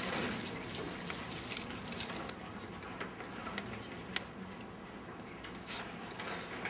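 Quiet lecture room with scattered small rustles and clicks as audience members unwrap a snack and chew it, over steady low room noise.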